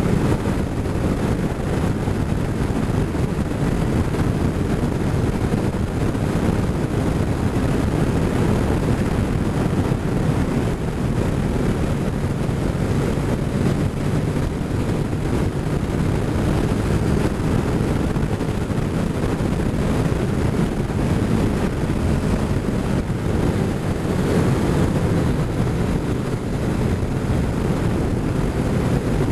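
Motorcycle cruising at steady road speed: a steady rush of wind buffeting the microphone, over the engine and tyre noise.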